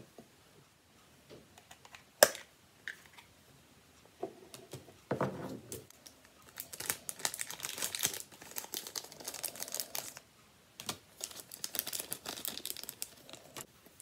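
A single sharp plastic click about two seconds in, then several seconds of crinkling and rustling as small plastic parts and packaging are handled.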